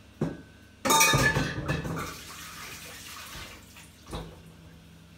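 Stainless steel stand-mixer bowl clattering as it is handled, with a brief metallic ring that fades over a couple of seconds. A soft knock comes just before it and a duller thump near the end.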